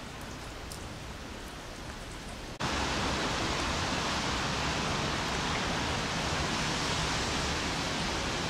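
Light rain hissing steadily, with a few faint drop ticks. About two and a half seconds in, the sound cuts abruptly to a louder, even hiss.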